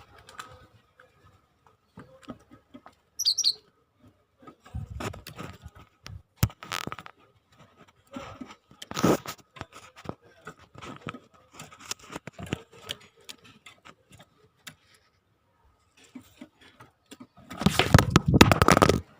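A caged tit fluttering and hopping about its cage, with wing flaps and knocks against the cage, and one short high chirp about three seconds in. A long, loud burst of fluttering comes near the end.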